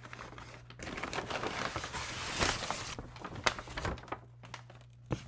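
Paper takeout bag crinkling and rustling as it is opened and handled, a dense crackle for about three seconds with a few sharper clicks after it.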